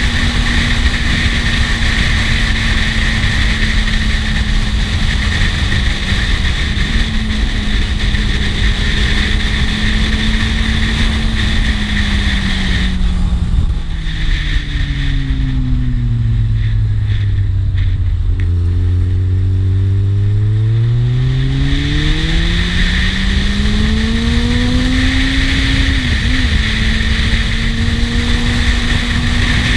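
Kawasaki Z750 S inline-four engine under way with heavy wind rush. About halfway through, the engine note falls steadily as the bike slows and the wind dies down. It then climbs again as the bike accelerates, with a quick gear change near the end before settling back to a steady cruise.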